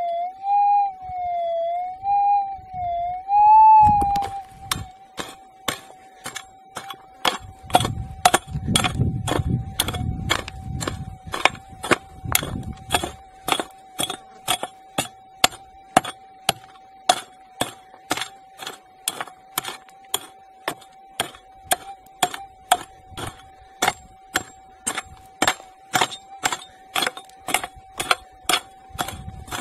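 Minelab GPX 4500 metal detector's tone wavering up and down for the first few seconds, then holding steady, over a pick striking hard red soil and rock about twice a second as a target is dug out. The pick strikes are the loudest sound.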